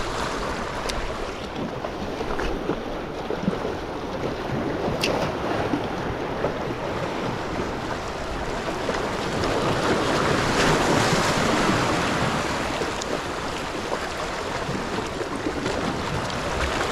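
Small sea waves washing over and around shoreline rocks, with wind buffeting the microphone. The surf swells up about ten seconds in, and a few faint sharp clicks come in the first five seconds.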